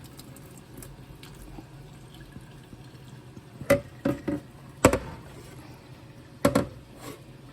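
Water being drained off boiled food in the kitchen, a low steady run of liquid, broken by several sharp clanks, the loudest a little under four, five and six and a half seconds in.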